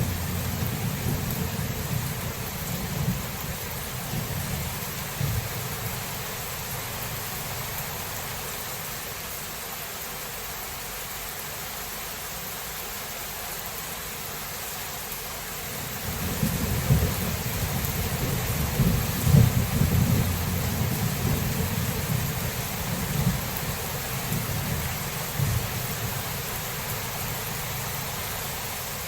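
Steady heavy rain with rolling thunder. One rumble fades out in the first few seconds, and a second one builds about 16 seconds in, peaks around 19 to 20 seconds and slowly dies away.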